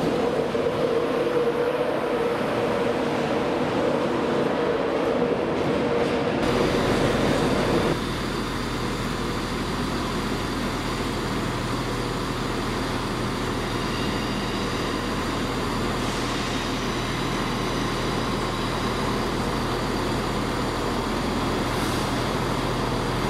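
An LNER train of Mark 4 coaches rumbles steadily along the platform. About six seconds in it gives way abruptly to the steady low hum of a ScotRail train's engine standing or creeping at the platform.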